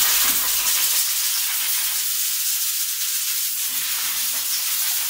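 Pressurised jet hissing steadily at a motorcycle's front disc-brake caliper, starting abruptly.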